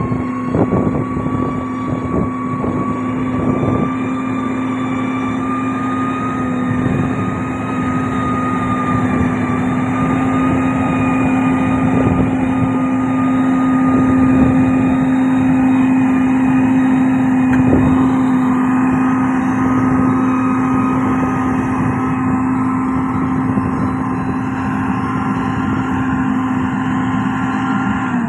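Heavy diesel road-construction machinery running steadily, its engine holding a constant tone, with occasional clanks and knocks, mostly in the first few seconds.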